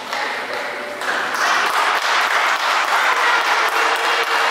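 Spectators clapping in a sports hall, the dense patter of many hands starting about a second in and continuing steadily: applause for a point just won.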